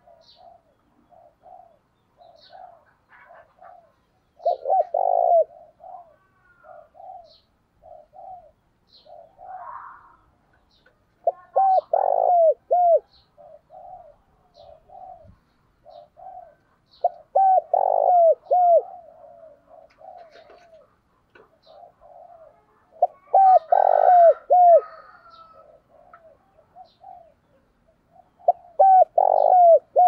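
Spotted dove cooing: a caged decoy bird giving loud cooing phrases about every six seconds, each a few falling notes, with softer short coos between them.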